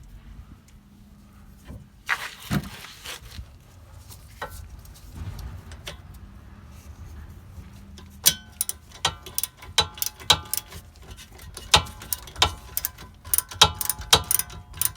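Socket ratchet wrench clicking and clinking as the rear wheel hub's mounting bolts are backed out. A few knocks come early, and the sharp metallic clicks get dense from about halfway through.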